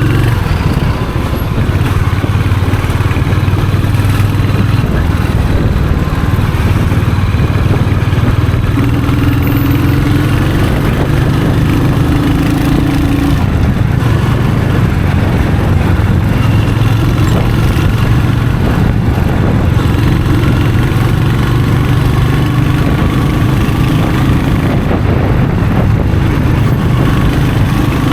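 Royal Enfield Hunter 350's 349 cc single-cylinder engine and exhaust running steadily at low revs, the note shifting a little up and down in pitch now and then.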